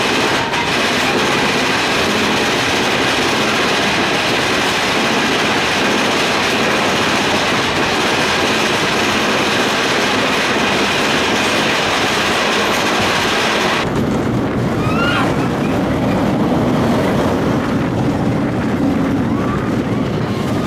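Big Thunder Mountain mine-train roller coaster cars running on the track, a steady rumble and rattle of the wheels. About 14 seconds in the sound changes abruptly: the high hiss drops away and a lower rumble takes over, with a few short squeals.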